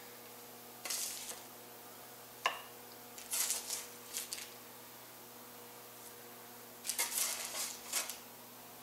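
A spatula scraping and clinking against a baking sheet as crusted fish fillets are lifted off it. It comes as several short scrapes, with a sharp click about two and a half seconds in and a longer cluster near the end.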